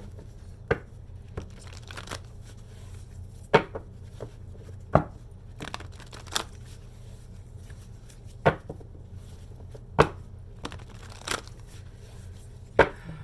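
A deck of tarot cards being shuffled by hand, with sharp card slaps at uneven spacing, about every one to two seconds.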